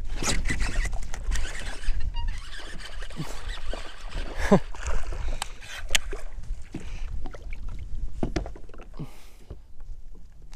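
Wind rumbling on the microphone out on a fishing kayak, with scattered light knocks and clicks.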